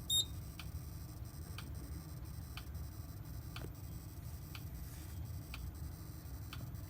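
A short, high electronic beep just after the start, then steady faint ticking about once a second over a low hum.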